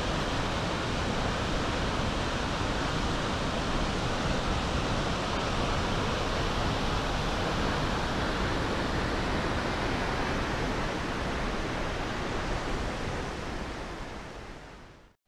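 Steady rush of Makahiku Falls, a tall plunge waterfall, heard across the gorge as an even roar of falling water. It fades away near the end.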